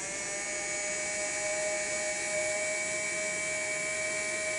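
Electric screwdriver running with a steady motor whine as it drives a mounting screw into the rack rail's threaded hole.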